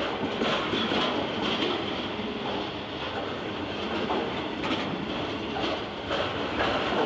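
A long rake of EWS freight wagons rolling past close by at speed. A steady rumbling hiss of wheels on rail is broken by occasional irregular clunks as the wheelsets run over the track.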